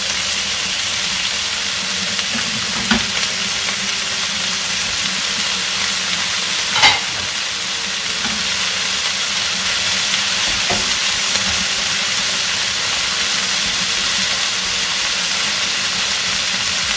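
Raw chicken thigh pieces and vegetables frying in oil in a large pan, giving a steady sizzling hiss as they are stirred. A few sharp knocks sound through it, the loudest about seven seconds in.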